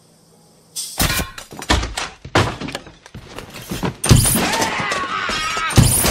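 A loud bang as a motel door lock is punched out of the door, followed by a string of crashes and knocks, then loud shotgun blasts about four seconds in and again near the end, with a man being shot.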